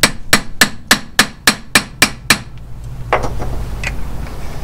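Socket ratchet clicking in an even rhythm, about three to four clicks a second, as it turns the centre bolt of a hub-seal installer tool that presses a new cassette seal into a Unimog U3000's front hub. The clicking stops about two and a half seconds in, followed by a couple of fainter metal knocks.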